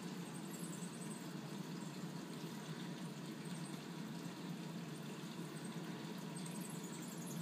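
Steady, even background rush of room noise with no distinct events.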